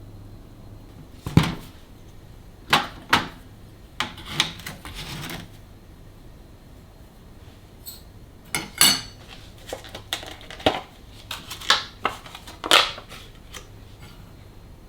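Kitchen handling sounds: dishes and utensils clacking and knocking as they are handled and set down, about a dozen sharp strikes spread through, with a brief scraping stretch early on.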